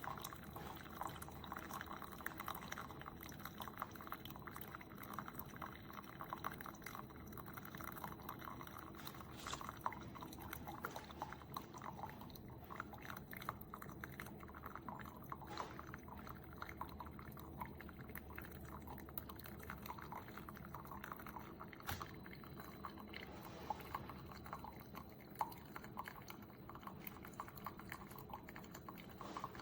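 Single-serve coffee maker brewing: a steady crackling gurgle of hot water with liquid trickling and dripping.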